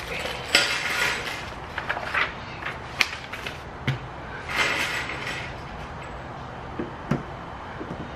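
Handling noises: two spells of rustling from a paper instruction sheet and a plastic bag of hardware, with a few sharp metal clicks and clinks of small parts against the creeper's steel frame.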